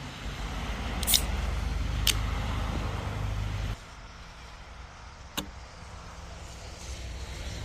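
Steady low rumble of a motor vehicle's engine, with a few sharp clicks; the rumble drops suddenly in level about four seconds in.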